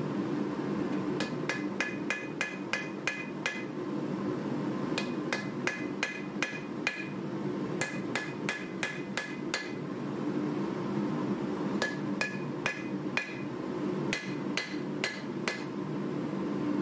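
A hand hammer forges a red-hot 1095 carbon-steel knife blade on an anvil. It lands in five runs of quick blows, about three or four a second, with short pauses between, and each blow rings bright and metallic. A steady low hum runs underneath.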